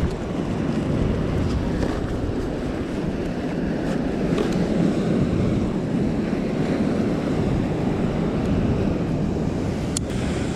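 Wind buffeting the microphone over the steady wash of ocean surf against the rocks, with a single sharp click near the end.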